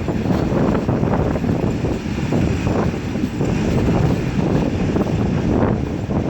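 Express passenger train running at speed: a steady, dense rumble of wheels on track with no let-up.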